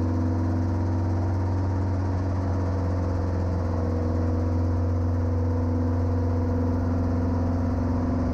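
Safari 400 helicopter's Titan 390 four-cylinder piston engine and main rotor running steadily, heard from the open cockpit as a constant low drone.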